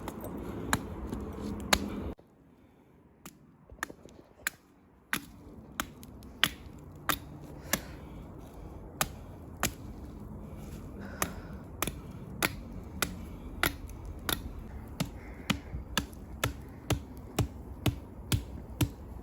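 A long series of sharp knocks, about one every second at first and coming faster toward the end, with a short stretch of near-quiet after about two seconds.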